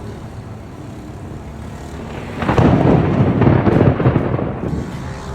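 Thunder: a low rumble, then about two and a half seconds in a sudden loud crackling crash of a close lightning strike that rolls on for about two seconds and fades back into the rumble.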